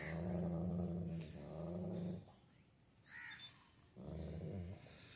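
Pakistani bully dog growling: three long, low, steady growls, the first two back to back and a shorter third one about four seconds in.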